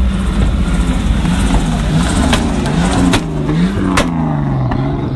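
A drift car's engine revving hard, held at first and then rising and falling again and again as the car slides past close by. A few sharp cracks come about two to four seconds in.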